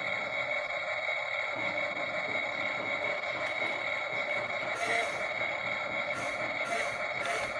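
Toy radio-controlled excavator giving a steady whine with a high ringing tone, with several brief hisses in the second half as its arm and bucket lift.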